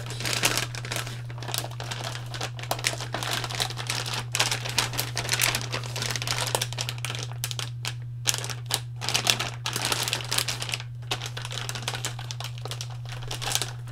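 Plastic anti-static bag crinkling and crackling in irregular bursts as a graphics card is handled and worked out of it, over a steady low hum.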